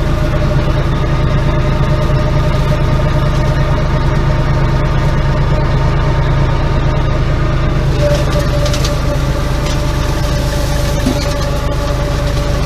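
Tractor engine running steadily while driving a PTO-powered hammer flail mulcher (GeoTech Pro KFM 170M) over orchard grass, the engine drone and the spinning rotor blending into one continuous machine noise. It turns a little brighter and hissier about eight seconds in.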